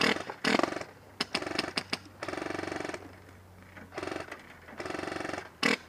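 Airsoft electric guns firing full-auto: three short bursts of very fast, even clicking, after a few separate sharp cracks in the first two seconds.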